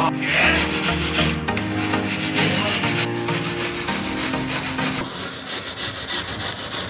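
Styrofoam block being hand-sanded smooth with an abrasive hand tool: a steady scraping rub of repeated strokes as the foam is shaped.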